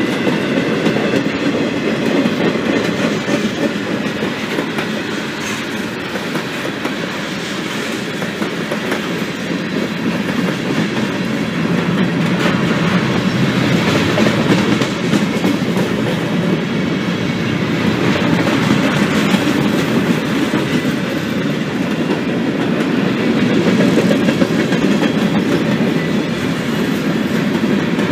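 Freight train's boxcars and covered hopper cars rolling steadily past close by, steel wheels running on the rails.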